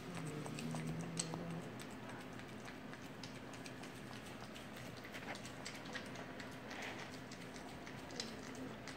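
French bulldog puppy eating raw food from a plate: a run of small, irregular wet clicks and smacks from its mouth lapping and chewing. A brief low hum sounds near the start.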